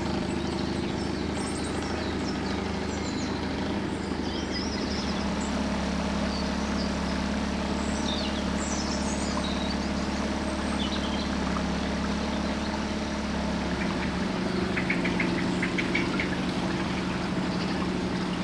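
Small cabin cruiser's outboard motor running steadily underway, with birds chirping.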